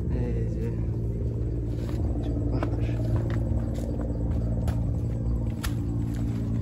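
A steady, low mechanical hum with scattered light clicks.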